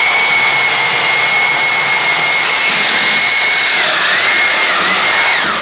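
Electric angle grinder running at full speed with a steady high whine, its pitch sagging twice near the end as the cutting disc is loaded into metal, then cutting off.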